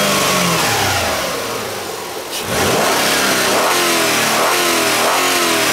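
2004 Hyundai Sonata's 2.7-litre V6 being revved from idle in repeated blips, the engine speed climbing and falling back several times, with a short drop toward idle about two seconds in.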